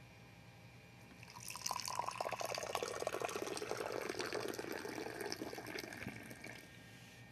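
Tea poured from a teapot into a glass: a splashing stream of liquid that starts about a second and a half in and fades out near the end.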